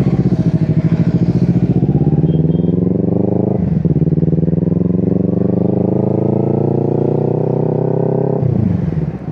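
Motorcycle engine accelerating away as the rider pulls off: the engine note rises in pitch, breaks briefly for a gear change about three and a half seconds in, climbs again in the next gear, then drops as the throttle eases near the end.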